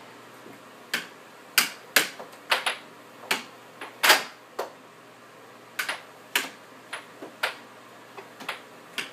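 Air hockey puck and plastic mallet clacking on the table at an irregular pace, with sharp knocks as the puck is struck and hits the rails; the loudest knock comes about four seconds in.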